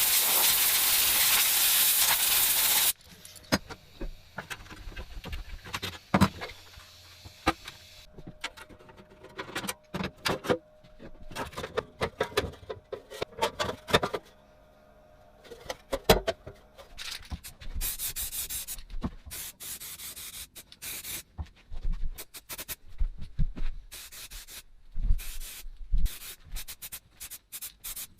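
A loud steady hiss for about the first three seconds, then irregular rubbing, scraping and knocking of hand work on the metal of a rusty tool box being restored, with short hissing strokes near the end.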